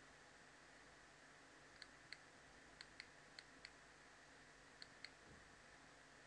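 Computer mouse button clicking: about eight faint, sharp clicks, mostly in quick pairs, over a low steady hiss.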